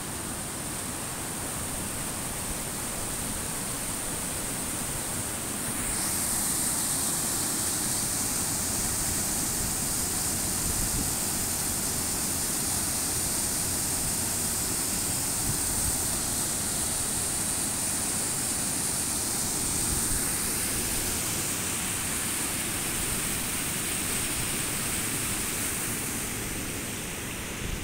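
Mountain stream rushing over rocks: a steady noise that grows a little louder about six seconds in.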